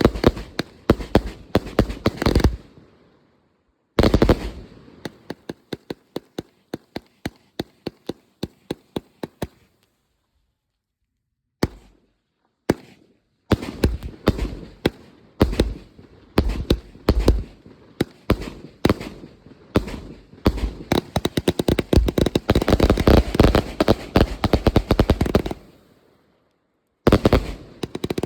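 UFO fireworks being test-fired: rapid strings of sharp pops and crackling bangs in bursts, which cut off abruptly several times. In the middle comes a run of evenly spaced pops, about three a second. The second half is a long, dense crackle.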